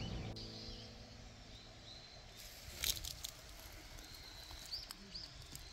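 Background music fading out in the first second, then faint outdoor ambience with a few short bird chirps. A brief cluster of clicks and rustling about halfway through is the loudest sound.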